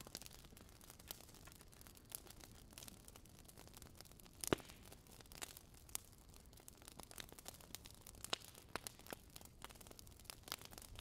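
Faint, irregular crackling and popping of charcoal embers in a beer-can stove, with one louder pop about four and a half seconds in.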